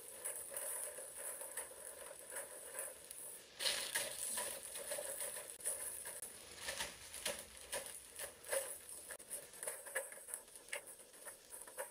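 Faint, irregular crackling of potato chips being crunched and plastic chip bags crinkling as they are eaten without hands, with a slightly louder crackle about three and a half seconds in.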